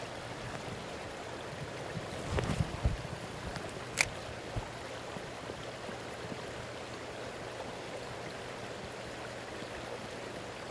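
River current flowing steadily, with a few dull knocks about two to three seconds in and a single sharp click about four seconds in.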